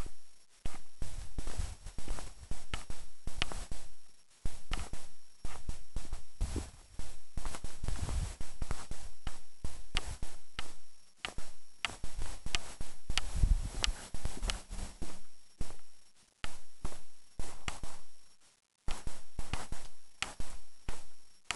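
Irregular sharp taps of falling rain hitting close to the microphone, several a second, with occasional low thumps.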